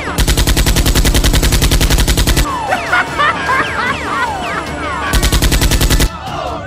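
Sound-effect automatic gunfire in two rapid bursts of about a dozen shots a second, the first lasting about two seconds and the second about one second, with short whistling glides between them.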